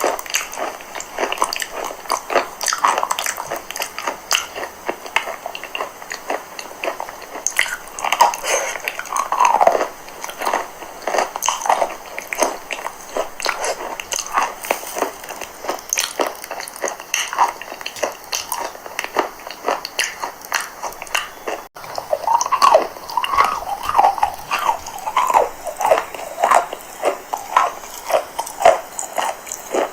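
Chalk crunching as it is bitten and chewed, a dense run of quick crisp cracks that goes on without a break, with a few short squeaky pitched sounds between them and an abrupt cut about two-thirds of the way through.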